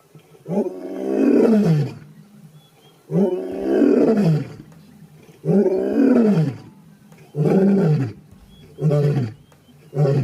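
Male lion roaring in a bout: five deep calls that each rise and then fall in pitch, the first ones long and the later ones shorter and closer together, with a sixth starting at the end. This is territorial roaring that tells other lions the ground is his, and also helps locate members of his pride.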